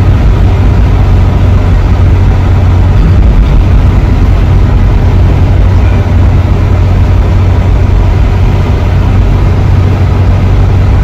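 Volvo 144 E's four-cylinder engine and tyre noise heard from inside the cabin while cruising at a steady speed: a steady low drone with no change in pitch.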